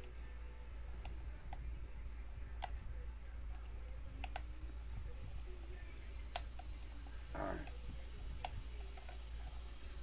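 A lock pick and tension wrench working the pins of a custom challenge lock: scattered small metal clicks, one every second or two, with a brief scratchy sound about seven seconds in, over a steady low hum.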